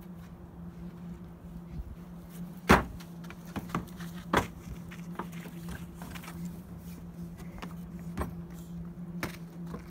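Small children jumping and running on a wooden slatted play ramp: scattered thumps of landings and footsteps, the loudest about three seconds in, over a steady low hum.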